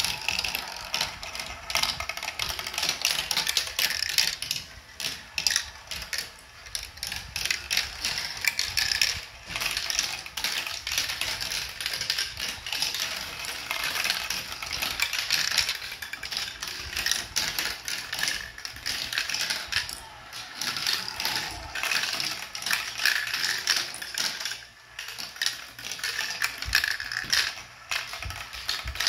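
Marble Genius plastic marble run in motion: marbles rolling and clattering through plastic tracks and funnels, with the chain elevator clicking as it lifts them, a dense run of small clicks with a few brief lulls.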